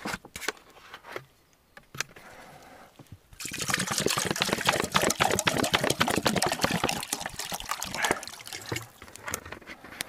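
Water poured from a large plastic bottle into an army mess tin, glugging and splashing steadily from about three seconds in until near the end, after a few light clicks.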